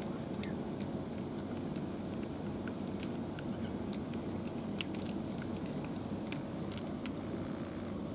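Cats crunching dry kibble: irregular sharp crunches and clicks throughout, one louder crack about five seconds in, over a steady low background rumble.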